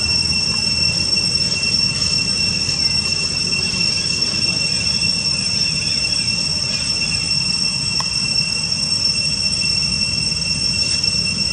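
Insect chorus: a steady, unbroken high-pitched drone on two pitches over a low background rumble.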